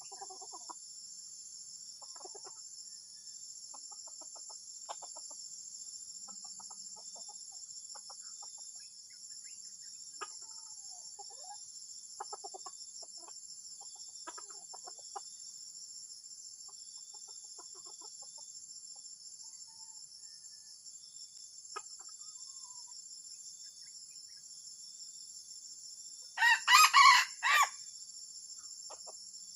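Junglefowl calling: soft, short clucking notes scattered throughout, then one loud, broken crow about 27 seconds in. A steady high-pitched insect chorus runs underneath.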